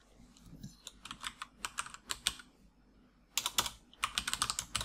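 Computer keyboard typing: a run of separate keystrokes, a short pause a little before the middle, then a quicker, denser run of keys.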